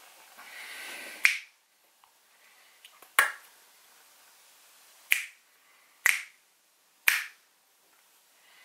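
Five sharp, short clicks at uneven gaps of one to two seconds, over a faint room hiss.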